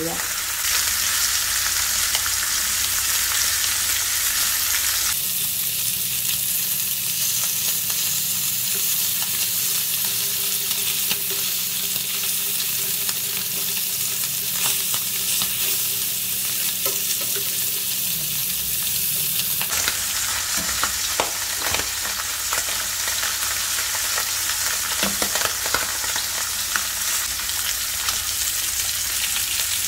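Mackerel pieces frying in oil in a pan, a steady sizzling hiss, with a few light clicks in the second half.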